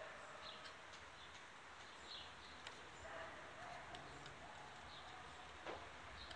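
Faint outdoor background noise with a low steady hum, a few short high chirps and some soft clicks.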